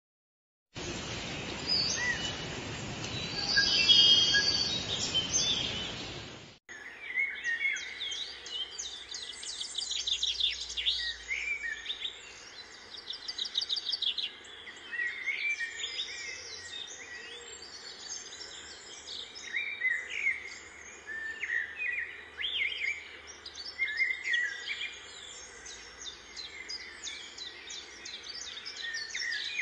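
Small birds chirping and trilling in many short, repeated calls over a faint steady background noise. The first six seconds or so are a separate loud stretch of even, hissing noise that stops abruptly.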